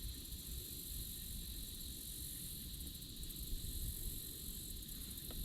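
Wind rumbling on the microphone over a steady high hiss, with no distinct events.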